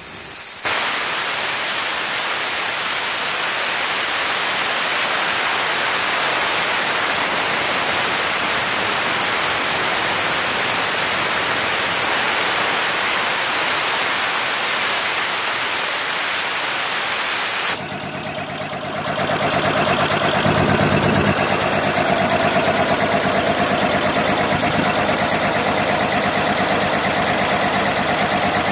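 Compressed air hissing steadily out of a 15 HP electric air compressor as the tank is bled down. A little before 18 seconds the hiss stops; the three-phase motor then cuts back in through its contactor and the piston pump runs with a fast, even pulsing, the automatic restart as the pressure falls.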